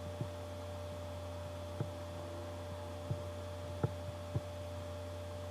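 Steady low electrical hum on the recording, with about five faint short clicks scattered through.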